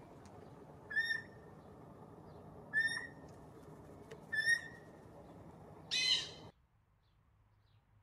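Eurasian jay calling: three short, clear calls about two seconds apart, then a louder, harsher call about six seconds in. The sound cuts off abruptly just after it.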